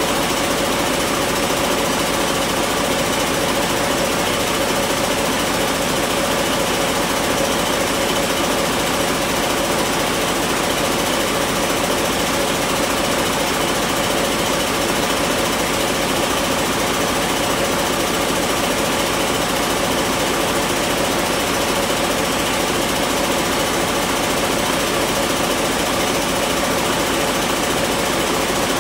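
2022 Detroit DD15 inline-six diesel engine running steadily, with an even diesel clatter.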